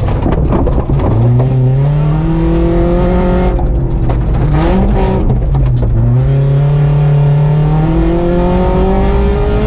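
BMW 318is four-cylinder engine under hard acceleration, heard from inside the cabin: the revs climb, fall away about three and a half seconds in, rise briefly and dip again about five seconds in, then climb steadily, over the crunch and rattle of gravel under the tyres.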